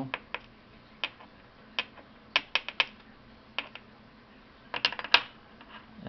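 Small metal clicks and taps, irregular, with a quick cluster about two and a half seconds in and another near the end: the brass plug and key pins of a Yale mortise cylinder being handled and set down on an aluminium pinning tray.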